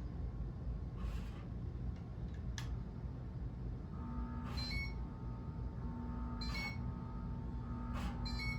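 Homestead Geneva ceiling fan running slowly in reverse with a steady low hum, and something on it scraping in short strikes every second and a half or so; a steady tone joins about halfway through. The rubbing follows the fan wobbling itself out of alignment on high, which the owner calls a real issue.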